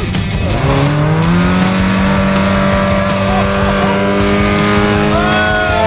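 An off-road vehicle's engine revs up over the first second or so, then is held steady at high revs.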